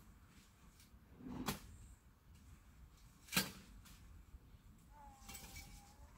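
Two sharp clacks about two seconds apart, with a faint, steady high tone coming in near the end.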